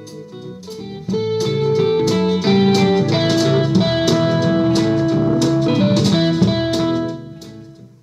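Guitar-led blues-style background music with a drum beat. It gets louder about a second in and fades out near the end.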